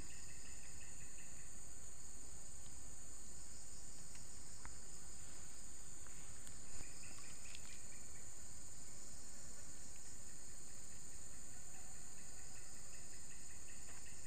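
Steady, high-pitched insect chorus, a continuous chirring from crickets or similar insects in the streamside vegetation.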